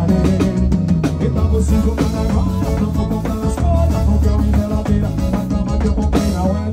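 Live band music: a man sings over electric bass, a drum kit and keyboards, with a steady, heavy bass line.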